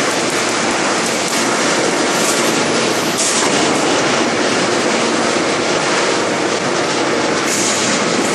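A 5000-tonne hydraulic forging press working a red-hot forging: loud, steady industrial noise, with two short hisses, about three seconds in and near the end.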